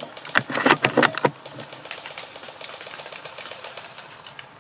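A short run of loud, sharp clattering knocks about half a second in. After it comes faint, fast, even ticking of automatic airsoft gun fire.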